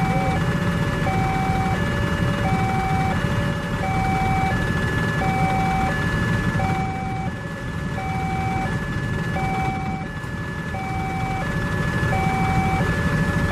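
Railway level-crossing warning alarm sounding with gates down, a higher and a lower electronic tone alternating steadily, signalling that a train is approaching. Underneath is a low rumble of waiting vehicles' engines idling.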